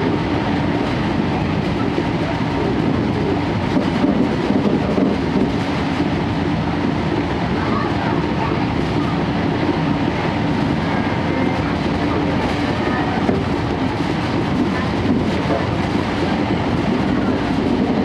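Steady running noise heard inside a 12-series passenger coach at speed: wheels rumbling on the track under the constant drone of the Suhafu 12's underfloor diesel generator engine.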